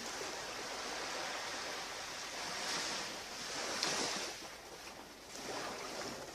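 Ocean surf washing onto a beach: a steady rush of waves that swells about halfway through, eases, then swells again near the end.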